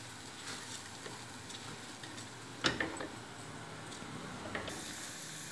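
Wooden spatula stirring basmati rice as it dry-fries in a metal pressure cooker, giving light scrapes and ticks against the pot over a faint steady sizzle-hiss. The sharpest click comes about two and a half seconds in.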